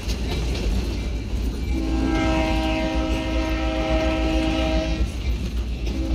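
Train air horn sounding a long chord-like blast of about three seconds, starting about two seconds in, with a second blast beginning near the end. Under it, the steady rumble of the train rolling on the rails.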